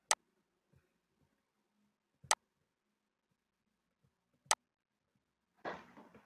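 Three sharp computer mouse clicks, about two seconds apart, with a soft rushing sound near the end.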